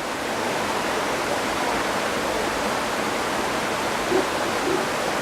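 A waterfall rushing steadily just below: a loud, even wash of falling water.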